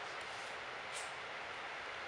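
Steady background hiss with a few faint clicks, the clearest about a second in, from a capybara chewing dried corn kernels.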